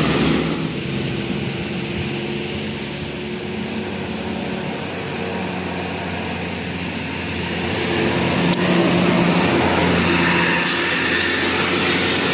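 Road traffic: vehicle engines running with a steady rushing noise, growing louder about eight seconds in as a vehicle comes closer.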